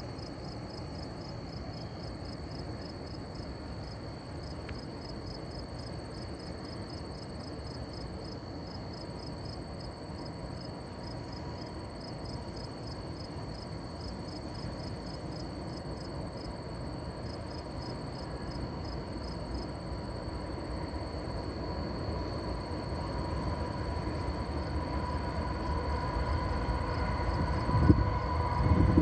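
Crickets chirping steadily while an approaching diesel freight train, led by a GE ES44AC locomotive, rises from a faint distant rumble to a clear growing rumble in the second half, with steady tones coming in near the end. A brief low thump near the end.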